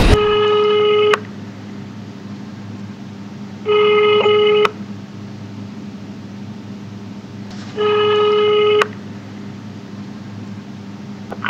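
Telephone ringback tone, the ringing a caller hears while waiting for the other end to answer: three one-second tones about four seconds apart, over a steady low hum.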